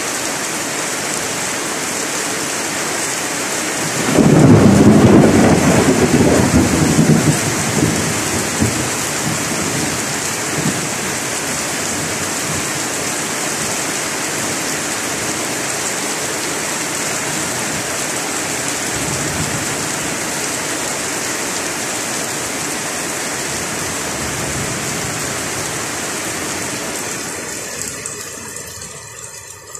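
Heavy rain falling steadily, with a loud rumble of thunder breaking out about four seconds in and dying away over several seconds. Fainter rumbles follow later, and the sound fades near the end.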